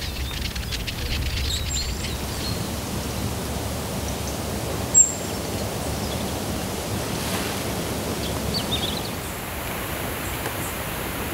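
Outdoor nature ambience: a steady rushing hiss with small songbirds chirping, thickest in the first couple of seconds and again briefly near nine seconds. A single sharp high click about five seconds in.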